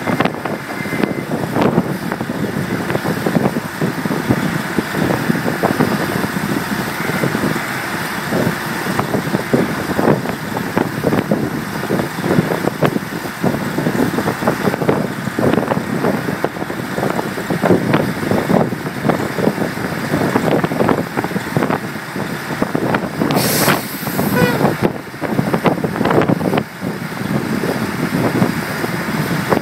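Workover rig engine running steadily under load while hoisting a casing jack, with scattered metallic knocks and clanks throughout. A short hiss comes about three quarters of the way through.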